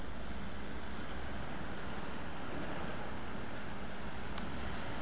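Diesel engines of British Army MAN SV trucks running steadily as they drive slowly toward the bridge in convoy.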